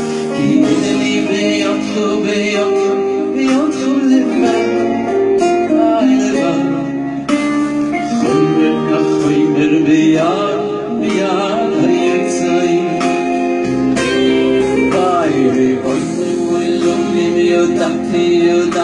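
A man singing a song into a handheld microphone, with instrumental accompaniment that includes guitar.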